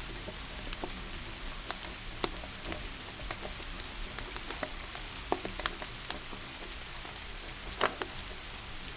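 Steady rain hiss with a wood fire crackling over it: scattered sharp pops, the loudest one nearly eight seconds in.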